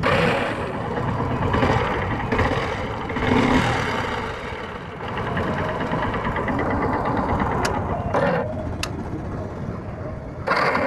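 Hero HF Deluxe's 100cc single-cylinder four-stroke engine electric-started and running, with a sudden loud start at the beginning and another loud burst near the end. The self-starter engages without its earlier grinding noise, now that the starter motor has been cleaned and its large gear greased.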